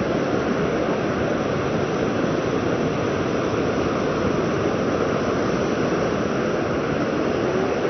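Ocean surf washing onto a sandy beach, a steady wash of noise.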